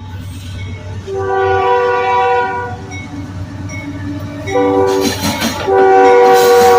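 Freight locomotive's multi-chime air horn sounding a long blast, a shorter one, then another long one, over the rumble of the approaching train. A rush of noise builds near the end as the train draws close.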